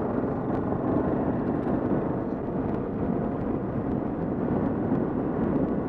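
Kawasaki KLR650 single-cylinder engine running at a steady cruising speed, mixed with wind noise on a helmet-mounted camera. The sound holds at an even level throughout.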